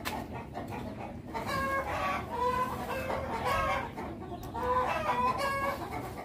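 Chickens clucking: a run of short, repeated calls that starts about a second and a half in.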